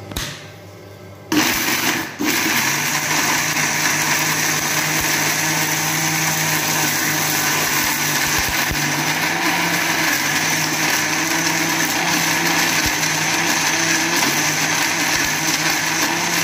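Electric mixer grinder with a steel jar grinding raw coconut, onion, garlic and soaked toor dal into a masala paste. The motor starts about a second in, dips briefly, then runs steadily.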